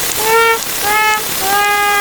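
Sad-trumpet sound effect: three falling 'wah' notes, the last one held, over a steady hiss.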